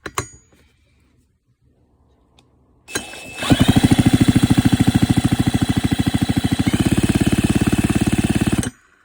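Pioneer Farm Saw chainsaw engine being turned over for a spark test, with a rapid, even pulse of about a dozen beats a second for about six seconds before stopping abruptly. The refitted, oven-baked ignition coil is sparking.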